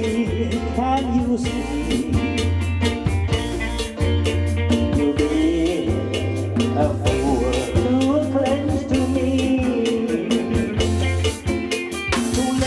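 A small live band playing a slow song: a man singing into a microphone over electric guitar, bass guitar, keyboard and drums keeping a steady beat.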